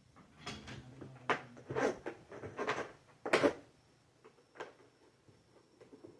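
Knocks and clatters of a vacuum cleaner's plastic parts being handled, several in quick succession over the first three and a half seconds, the loudest about three and a half seconds in, then a few fainter taps. No motor is running.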